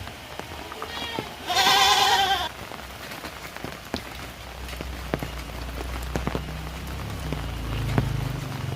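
Heavy rain falling on surfaces, with scattered drips. About a second and a half in, an animal gives a loud, wavering bleat lasting about a second, just after a fainter one. In the last few seconds a low rumble builds into a steady low drone.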